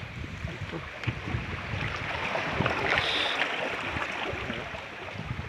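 Creek water rushing and splashing between boulders, growing louder about halfway through and then easing, with a low rumble underneath.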